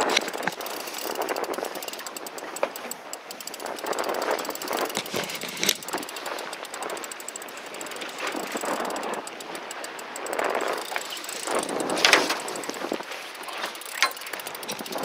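Wind and waves rushing against a small fishing boat, with a spinning reel being cranked in spells as a hooked fish is fought. Surges of noise come every couple of seconds, with a few sharp clicks; the loudest is about twelve seconds in.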